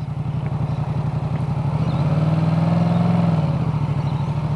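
Yamaha MT-07 parallel-twin engine running under way, picked up by a microphone inside a full-face helmet. The engine pitch rises a little about two seconds in and eases back down near the end.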